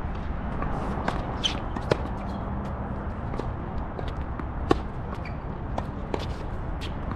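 Tennis balls struck by rackets and bouncing on a hard court, a sharp pop every second or two, the two loudest hits about 2 and nearly 5 seconds in. Steady wind rumbles on the microphone underneath.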